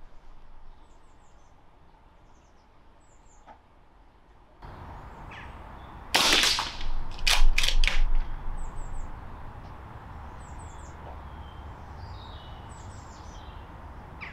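A .22 Remington Vought PCP air rifle is fired and its bolt worked to recock it. There is a loud sharp report about six seconds in, then a quick cluster of sharp metallic clacks about a second later.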